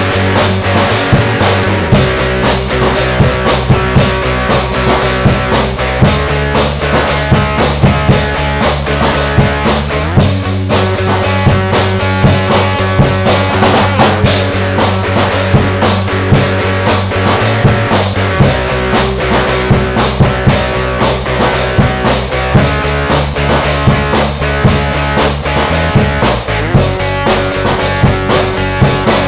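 Instrumental intro of a rock band song: guitar, bass and drum kit playing a steady beat with no singing, the chords changing about every eight seconds.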